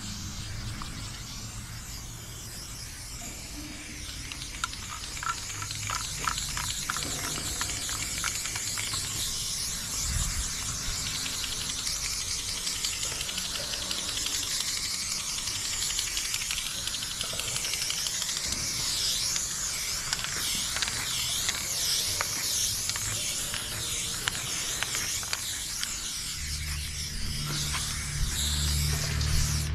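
Aerosol spray paint cans hissing in short and long strokes, the hiss rising and falling. A low rumble comes in near the end.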